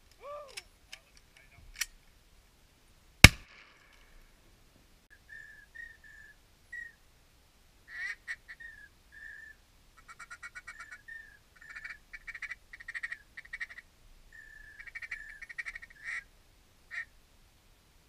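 A single sharp bang about three seconds in, then from about five seconds on runs of short duck quacks and chatter that quicken into fast, rapid strings.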